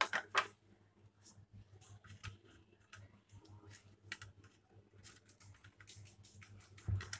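Light, scattered clicks and taps of fried chickpea kababs and fingertips against a ceramic serving plate as the kababs are set down on it, with a heavier knock near the end.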